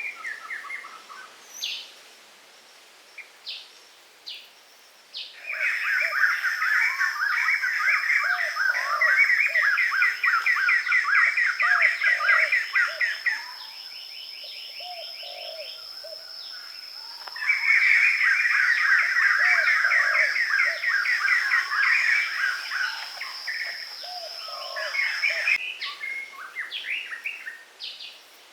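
Birds chirping and twittering: scattered single calls at the start and end, and two long spells of dense, rapid chirping of about eight seconds each, with a steady high tone running under them.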